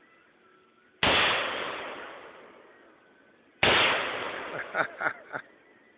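Two single shots from an AK-47 rifle (7.62×39 mm), about two and a half seconds apart, each with a long echo dying away over a couple of seconds. Neither is followed by an explosion: the rounds miss the Tannerite target.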